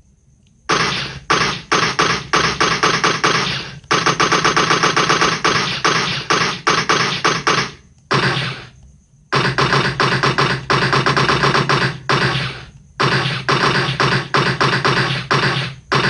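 Automatic gunfire sound effect: bursts of rapid shots in quick succession, starting about a second in, with a long sustained burst in the middle and brief pauses between bursts.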